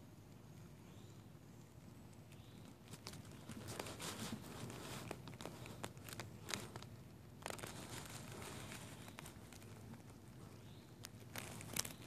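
Low steady hum of a honeybee colony clustered on the comb, with irregular crinkling and rustling handling noises from about three seconds in.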